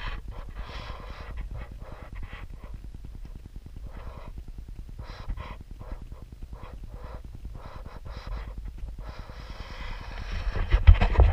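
Low rumble of a slow-moving vehicle picked up by a hood-mounted action camera, broken by irregular bursts of rushing noise, getting louder about ten seconds in.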